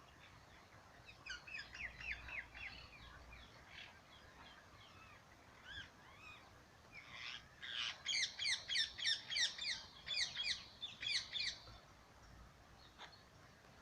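Wild birdsong: a bird sings a short run of quick, repeated chirping notes about a second in. A louder, longer run of the same kind of notes follows from about eight seconds in.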